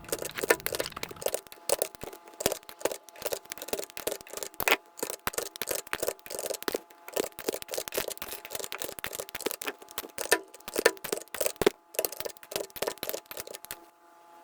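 Plastic keycaps being pulled off and pressed onto a mechanical keyboard's switches with a keycap puller: a continuous run of irregular clicks and snaps, several a second.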